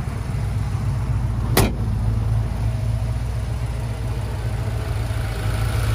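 Blueprint 302 crate V8 with throttle-body fuel injection, headers and dual exhaust, idling steadily. A single sharp knock about a second and a half in.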